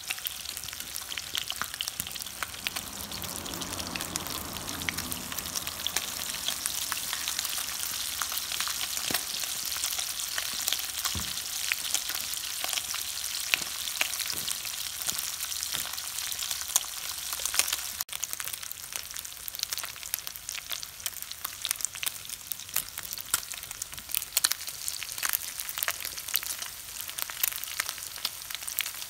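Pieces of chicken skin frying in their own rendered fat in a nonstick frying pan: a steady, dense sizzle with many small spitting pops. The pops grow more frequent in the last third.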